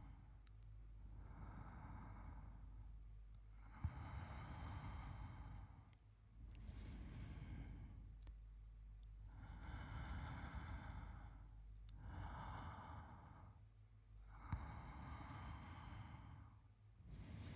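A man breathing slowly and softly, close to the microphone, as in sleep. Inhales and exhales alternate about every two seconds, and a couple of the breaths carry a faint high whistle.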